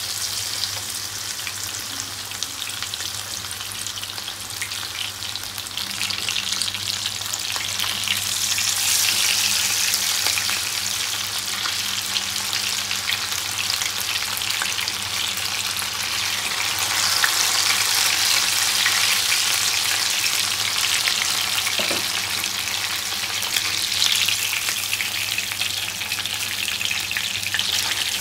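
Masala-coated pomfret fish sizzling and crackling steadily as it fries in hot oil in a pan. The spitting grows louder after the first several seconds.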